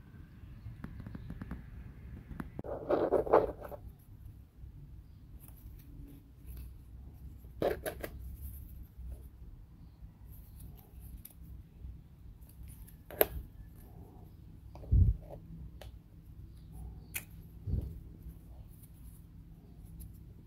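Wooden puzzle model pieces being handled and fitted together: scattered sharp clicks and taps, a short crackling burst of clicks about three seconds in, and two dull knocks later on.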